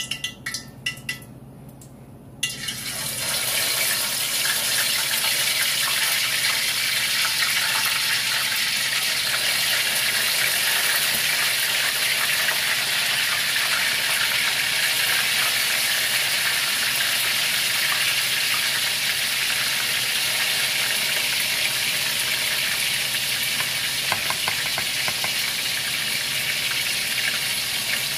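A few light metal clinks, then about two and a half seconds in a loud, steady sizzle starts as seasoned chicken pieces go into hot oil in an aluminium Dutch pot. This is the first frying stage of brown stew chicken, the pieces browned in oil before being cooked down.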